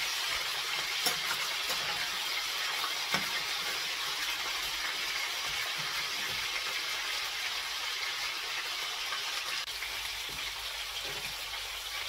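Chicken pieces sizzling steadily as they fry in hot oil in a stainless steel pan, with a few light clicks of a spatula against the pan in the first few seconds.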